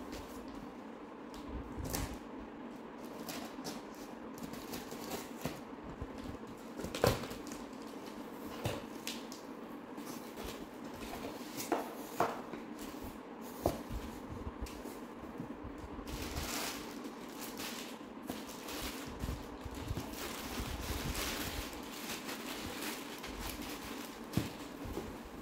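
A cardboard shipping box being opened by hand: the tape worked loose, the flaps pulled back and the contents handled, giving scattered knocks and scrapes of cardboard with stretches of rustling plastic packing, over a steady low hum.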